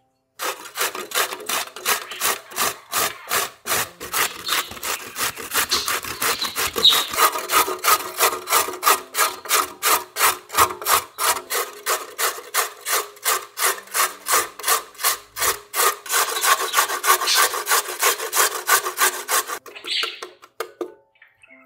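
A carrot being grated on a stainless steel box grater, in quick, even rasping strokes about three a second. The strokes stop near the end.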